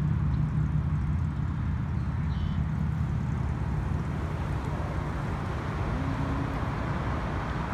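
Steady low outdoor rumble, with no distinct event standing out.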